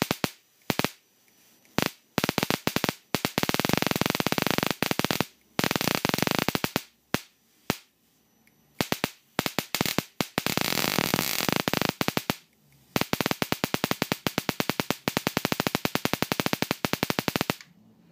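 High-voltage arcs from a flyback transformer snapping across the copper pads of a perfboard, many small arcs at once. A few single snaps come first, then from about two seconds in long runs of rapid crackling with short pauses, stopping just before the end.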